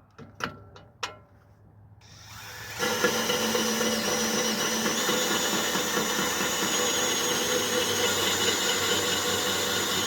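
A few handling clicks, then a small electric power grinder starts up about two seconds in and runs at a steady high speed, grinding a circular sawmill blade tooth to sharpen it.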